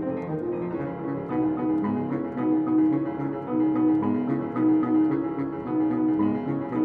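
Saxophone and grand piano playing contemporary classical chamber music: the saxophone repeats a series of held notes over a busy, rhythmic piano part.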